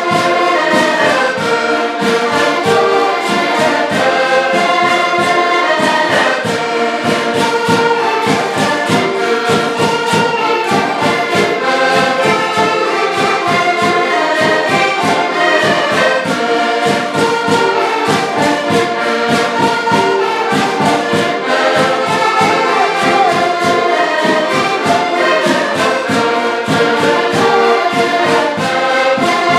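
An ensemble of button accordions playing a folk tune together, with a hand-held drum beating steady time.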